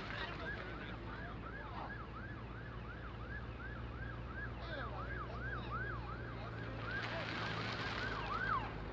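Emergency vehicle siren in a fast yelp, its pitch sweeping up and down about three times a second. A car passes close by near the end.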